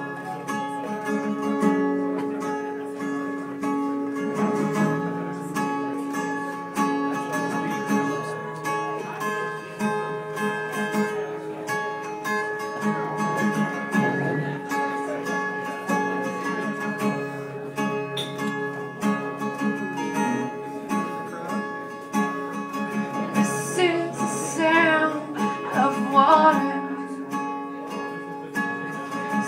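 Acoustic guitar playing the instrumental introduction to a song. A wavering voice briefly comes in near the end.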